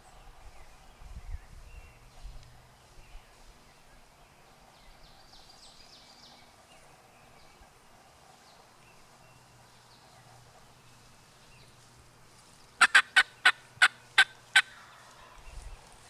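Wild turkey calling near the end: a quick run of about eight loud, sharp notes over roughly two seconds. Low rumbling of handling or wind noise on the microphone in the first few seconds.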